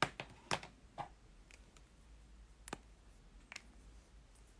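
Pens being handled and set down on a desk: a quick cluster of sharp clicks and taps in the first second, then two more single clicks spaced out.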